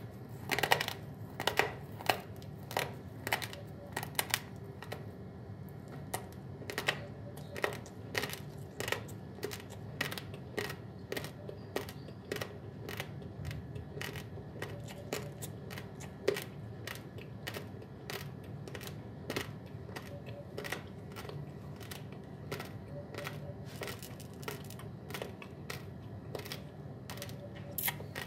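Uncooked basmati rice grains being crunched between the teeth: a rapid, irregular run of sharp cracks, several a second, loudest in the first few seconds.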